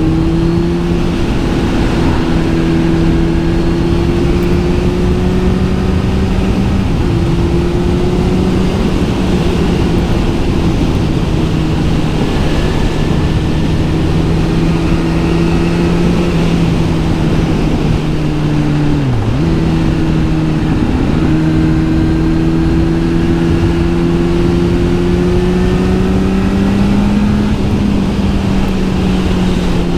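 Kawasaki Z900 SE's inline-four engine, breathing through an SC Project S1 exhaust, running at steady cruising revs under way. The pitch creeps slowly upward, with one brief sharp dip and recovery about two-thirds of the way through.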